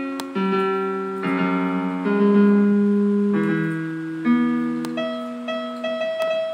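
Piano chords from a laptop's virtual piano app, played slowly as a simple tune: a new chord about every second, each ringing on and fading.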